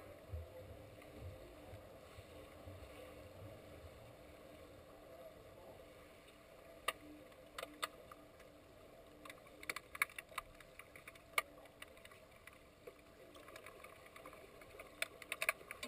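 Underwater hockey heard through a submerged camera: a low bubbling rush from a player diving close by in the first few seconds, then scattered sharp clicks from sticks and the puck striking the tiled pool floor. The clicks come singly, with small bunches around the middle and near the end.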